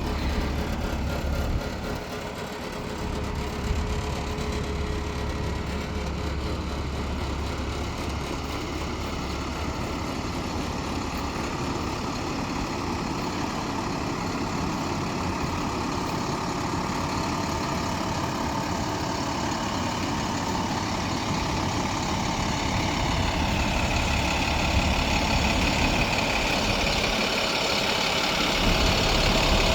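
Diesel engine of a heavy vacuum excavator truck idling steadily, growing a little louder over the last several seconds.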